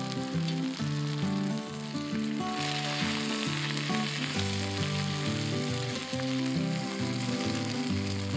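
Lamb chops and a roast sizzling on onions in a cast-iron pot, the sizzle getting much stronger about two and a half seconds in as meat is laid into the pot with tongs. Background music plays throughout.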